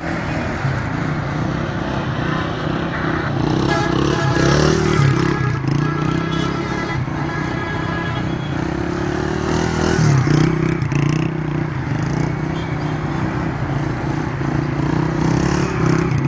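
Small motorcycle engines running, their pitch rising and falling unevenly as the throttle is worked during wheelies.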